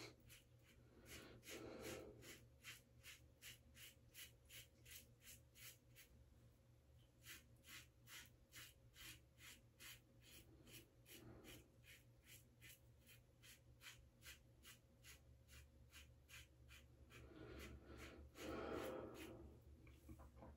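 Faint scraping of a safety razor (a 1978 Gillette Black Beauty with a Gillette Nacet blade) cutting stubble through shaving lather on the second pass, in short repeated strokes about two a second.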